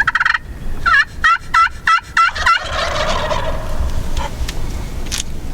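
Wild turkey toms gobbling: a short gobble at the start, then a longer rapid rattling gobble of about seven quick gulping notes, fading out after it.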